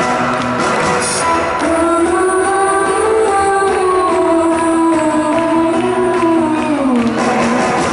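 A live rock band playing loudly, with a long held lead note that slides down in pitch near the end.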